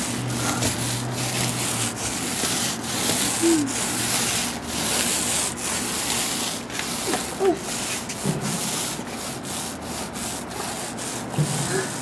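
Paint roller being rolled over garage door panels: a rough rubbing swish, repeated stroke after stroke.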